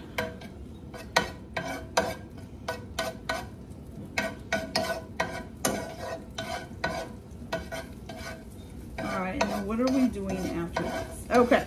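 A spoon stirring diced chipotle pepper frying in oil in a skillet, clinking and scraping against the pan about twice a second, over a light sizzle.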